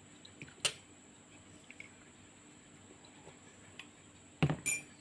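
Tableware clicks: a metal fork tapping a ceramic plate, then near the end a ceramic mug knocks down on the table and clinks against the spoon in it.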